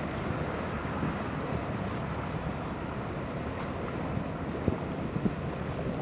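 Wind buffeting the microphone: a steady low rumble that flickers unevenly, with a few sharper gusts near the end.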